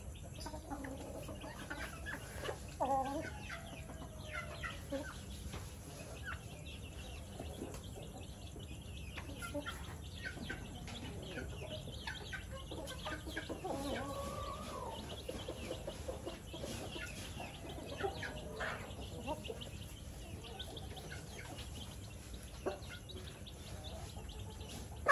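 A flock of chickens foraging on the ground, clucking in scattered short calls, with a louder call about three seconds in.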